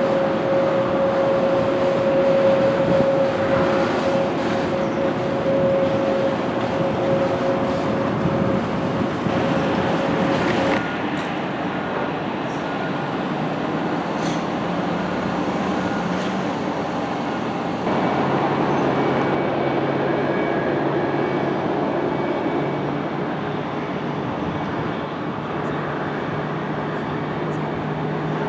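Jet airliner engines running at taxi power, a steady whine over a rushing noise; the sound changes abruptly twice as a different aircraft takes over.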